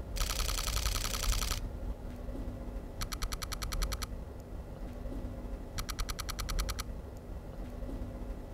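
Fujifilm X-H2S shooting a high-speed burst on its mechanical shutter, a rapid run of shutter clicks at about 15 frames per second lasting about a second and a half. Then it switches to the electronic shutter at about 40 frames per second, and its simulated electronic shutter sound plays twice, each burst a second long and made of finer, quicker clicks.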